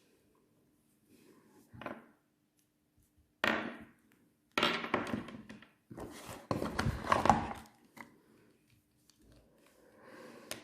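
Handling noises: short bursts of rustling and knocking, loudest in the middle stretch, over a faint steady hum.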